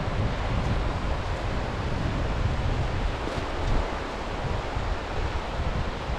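Sea waves washing onto the shore in a steady rush, with wind gusting against the microphone in a low, uneven rumble.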